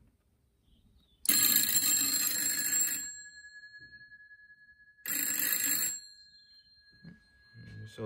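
GPO Bell 1a telephone repeater bell, its clapper driven by a ringing generator, ringing in two bursts: one of about a second and a half, then a shorter one a couple of seconds later. After each burst the two domed gongs keep sounding and slowly die away. The bell is ringing properly when switched over WiFi.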